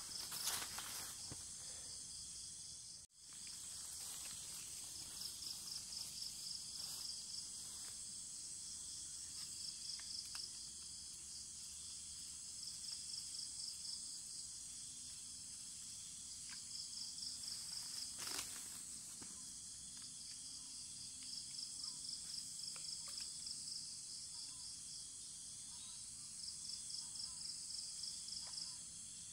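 Insect chorus: a steady high-pitched hiss with a pulsing, chirping call that comes in bursts of about two seconds every few seconds. The sound briefly cuts out about three seconds in.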